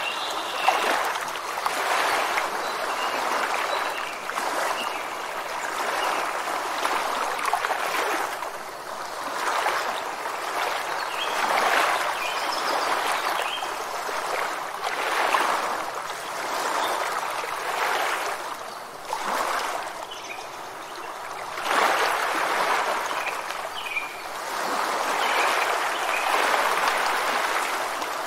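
Rushing water, swelling and easing in surges every two to three seconds.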